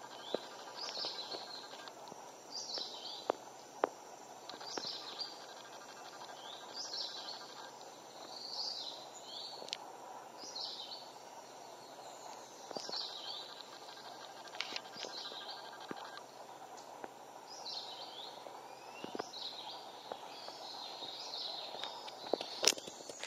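A bird repeating a short, high, chirping call about once every two seconds over steady background noise, with a sharp click near the end.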